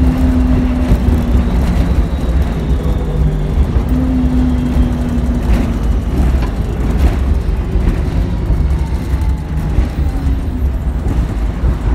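City bus running along the road, heard from inside at the front: a heavy low rumble of engine and road with drawn-out tones that come and go and shift slowly in pitch, and a few rattles about six to seven seconds in.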